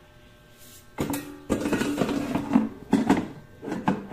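A series of sharp knocks and clatters starting about a second in and coming irregularly after that, several of them with a short low ringing.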